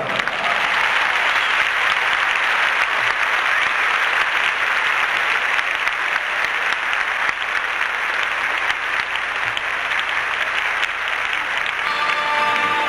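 Audience applauding, a steady round of clapping; music starts again near the end.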